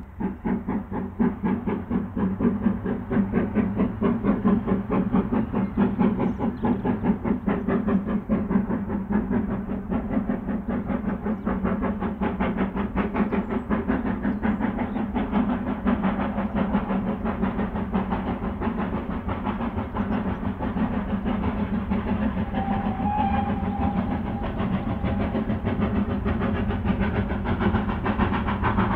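Steam locomotive working hard under power as it approaches, its exhaust beats coming in a rapid, even rhythm.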